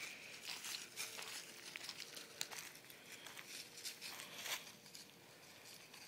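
Footsteps crunching and rustling on dry leaves and dirt: a string of irregular crackles.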